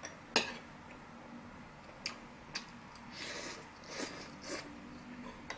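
A metal spoon clinks sharply against a soup bowl, followed by two lighter taps, then a few short slurps of soup sipped from the spoon.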